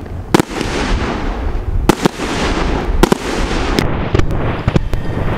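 Aerial fireworks going off: about seven sharp bangs at irregular intervals, two of them close together, over a continuous crackle and hiss.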